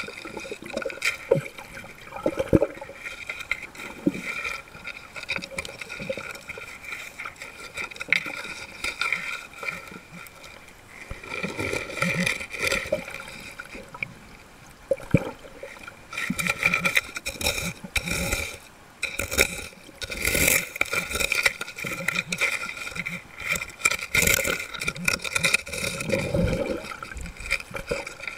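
Muffled underwater sloshing and gurgling as sand and gravel on the seabed are stirred and dug by hand, with occasional sharp knocks and a steady high hum underneath.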